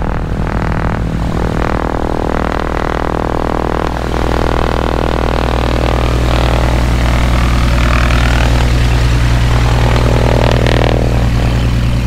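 Light airplane's piston engine and propeller running close by at a steady speed, loud, growing a little louder about four seconds in.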